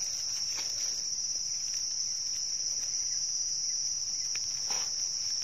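A steady, high-pitched insect drone holding one unbroken tone throughout. There are faint rustles and light clicks from hands and a knife working in dry leaf litter.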